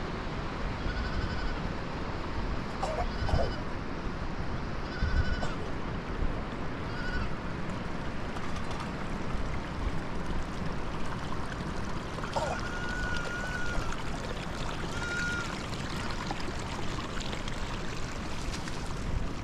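Young livestock bleating in short, high calls about every two seconds, with one longer held call a little past the middle, over a steady background hiss.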